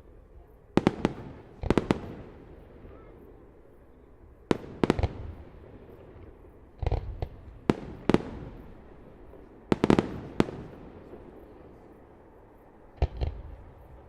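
Fireworks display: aerial shells bursting in sharp bangs, singly and in quick pairs or clusters, about ten in all, each followed by a rolling echo.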